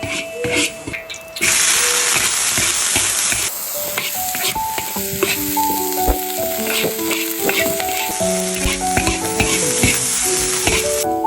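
Food sizzling as it is stir-fried in a hot pan, with the spatula clacking and scraping; the sizzle comes in suddenly about a second and a half in. Light marimba-like background music plays over it.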